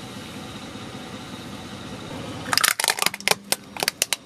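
Plastic toy trucks cracking under a car tyre: after a low steady rumble, a quick run of sharp snaps and cracks starts about two and a half seconds in and goes on to the end.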